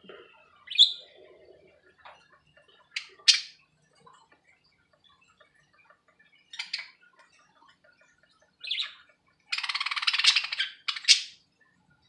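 Budgies calling: a handful of short chirps and squawks spread out, then a longer harsh squawk of over a second about ten seconds in, the loudest, followed by one more sharp call.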